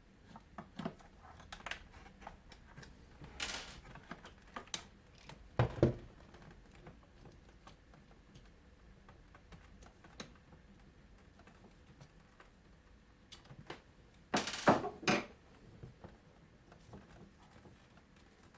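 Scattered clicks and light knocks of a screwdriver and the plastic door latch assembly being handled as the latch's two screws are taken out, with a heavier knock about six seconds in and a short run of louder knocks near the end.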